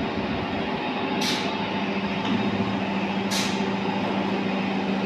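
Sugar factory machinery running with a steady hum of several held tones, cut by a short high hiss like an air release about every two seconds.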